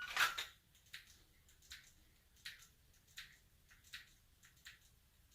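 A shot timer's start beep ends as a Glock 34 Gen 5 is drawn from its holster with a short clatter. Then come six faint, sharp dry-fire clicks about three-quarters of a second apart, the pistol's trigger breaking on an empty gun during target transitions.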